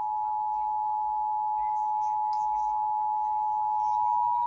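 Emergency Alert System two-tone attention signal: two steady tones sounded together just under 1 kHz, held unbroken, announcing a broadcast emergency alert.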